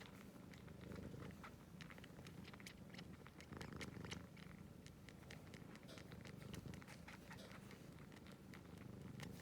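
Domestic cat purring softly in a low, steady rumble, with scattered light clicks over it.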